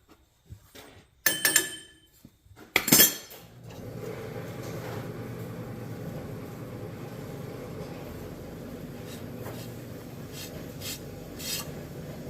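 A few sharp metal clanks and knocks from foundry molding work, one ringing briefly, the loudest about three seconds in. Then a steady mechanical hum with a rushing noise sets in and keeps going.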